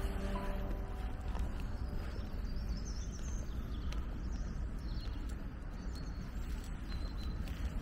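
Outdoor ambience: a steady low rumble with a few faint high bird chirps about three to five seconds in.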